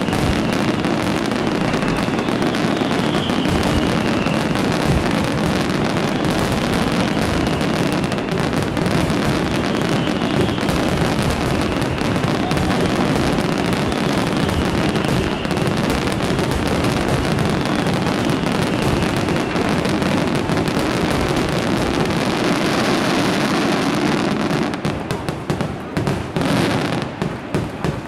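Dense, unbroken barrage of aerial fireworks shells bursting and crackling, the closing finale of the display. Near the end the barrage thins into a few separate bangs and dies away.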